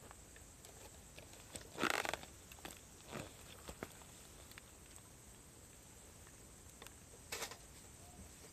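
Cedar firewood crackling in a campfire: scattered small pops, with a few louder short rustling bursts, over a steady high insect-like hiss.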